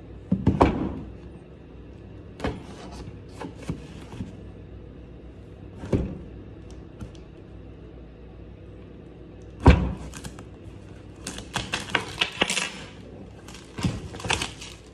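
Cardboard product box being handled and its seal cut with a small knife: scattered knocks, taps and scrapes, the loudest knock about ten seconds in, then a quick run of scratchy clicks from about eleven to thirteen seconds.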